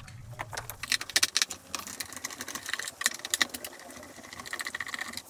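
Irregular clicking and scraping of a small blade working against the dirty turbine of a vacuum cleaner, scraping out built-up dirt.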